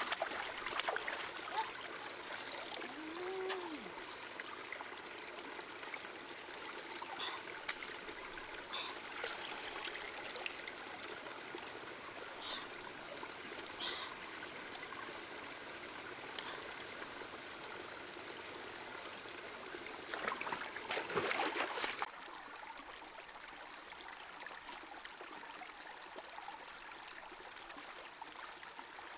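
A shallow rocky stream trickling steadily, with hands splashing and water dribbling as food is rinsed in it. A louder spell of splashing cuts off suddenly about two-thirds of the way through, leaving fainter flowing water.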